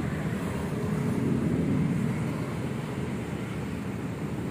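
Steady low engine rumble without a clear pitch.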